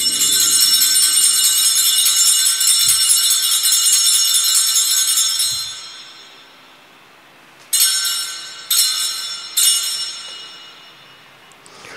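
Altar bells rung at the elevation of the consecrated host: a jingling ring held for about five seconds, then three short separate rings about a second apart.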